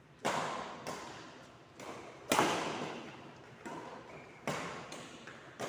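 A ball being struck and bouncing during a rally in an echoing court: about seven sharp, irregularly spaced hits, each with a long echo. The loudest hit comes a little over two seconds in.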